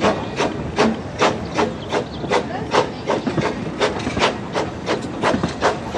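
Talyllyn Railway narrow-gauge steam train, hauled by the 0-4-0 tank locomotive Dolgoch, running past: a steady rhythm of sharp beats, about two and a half a second, over the rumble and hiss of the rolling coaches.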